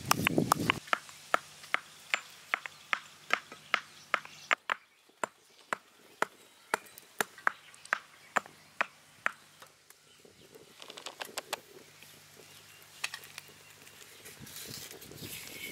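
A steady run of sharp knocks, about two a second, that stops about nine and a half seconds in, followed by a few softer scattered clatters.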